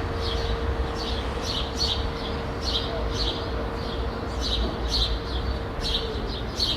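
Small birds chirping in short, repeated bursts over a steady low rumble of distant city traffic. A steady hum underneath stops about six seconds in.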